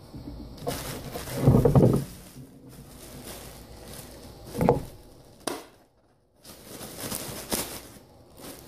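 Bag of sand in a plastic tube being handled and torn open: plastic crinkling and rustling with a few louder knocks and thuds, the loudest about one and a half seconds in and a sharp click near the middle.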